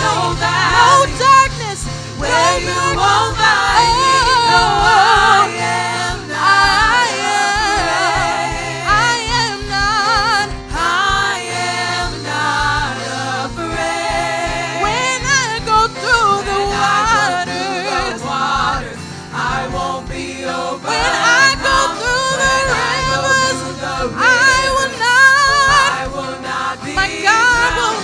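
Gospel worship music: singers with a choir over a steady instrumental accompaniment.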